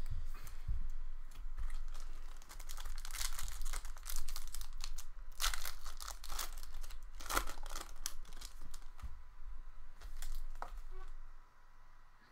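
Trading-card pack wrappers crinkling and tearing as packs are ripped open and the cards handled, in irregular bursts that die down near the end.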